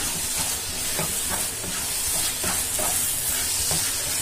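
Grated-carrot halwa sizzling in ghee in a non-stick pan as a wooden spatula stirs and scrapes through it: a steady high hiss with repeated soft scraping strokes.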